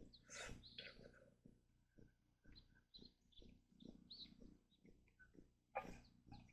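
Faint bird calls, a few short high chirps in the middle, over a quiet background. A person slurps ramen noodles about half a second in, with another short noisy sound near the end.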